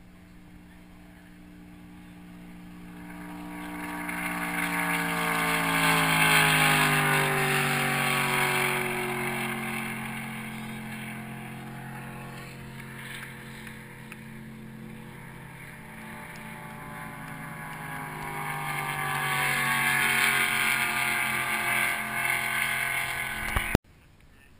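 Ski-race boat engines passing at speed, the note swelling and dropping in pitch as a boat goes by. A second pass swells later, and the sound cuts off suddenly near the end.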